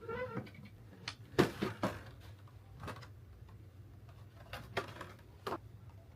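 Makeup packaging and products being handled: a run of sharp clicks and taps, a quick cluster about a second and a half in and a few more later, over a low steady hum.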